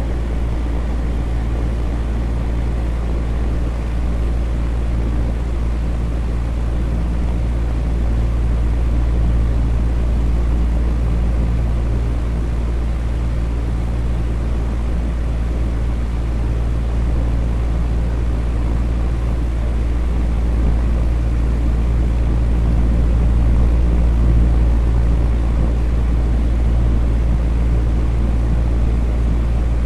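Electric fan running steadily: a continuous low whooshing rush with a faint hum, heaviest in the low end and unchanging.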